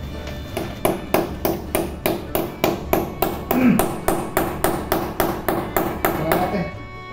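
Hammer tapping in quick, evenly spaced strokes, about four a second, for around six seconds.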